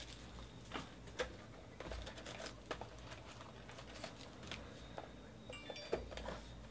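Faint handling of cardboard trading-card boxes and foil packs: scattered light taps and clicks as a box is pulled from a stack, its lid opened and the packs moved, with soft rustling. A few short, high squeaky tones come about five and a half seconds in.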